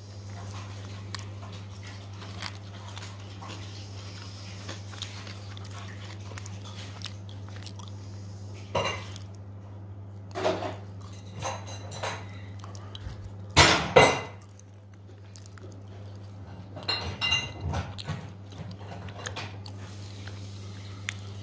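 Someone biting into and chewing crisp french fries, in a few irregular crunches, the loudest two close together about two-thirds of the way through, over a steady low hum.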